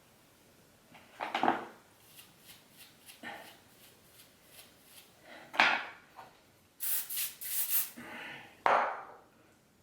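Hair being backcombed with a teasing brush: a series of short scraping, rubbing strokes through the hair, with a quick run of sharper, brighter strokes near the end.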